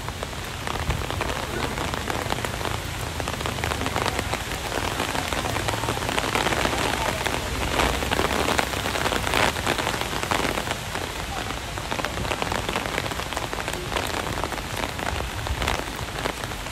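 Rain falling steadily in a thunderstorm, a dense patter of drops, growing a little heavier around the middle, with gusty storm wind rumbling on the microphone.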